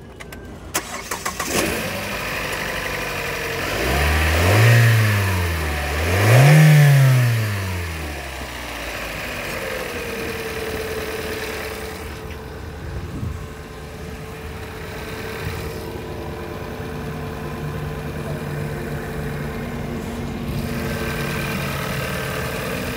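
2014 Kia Sportage's GDI petrol four-cylinder engine starting about a second in, then revved twice, each rev rising and falling, before it settles into a steady idle with a thin steady whine over it.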